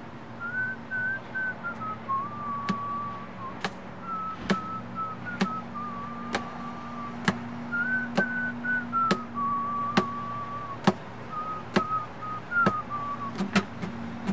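A person whistling a slow tune in phrases a few seconds long, over sharp taps that keep a steady beat a little under once a second, with a low steady hum underneath.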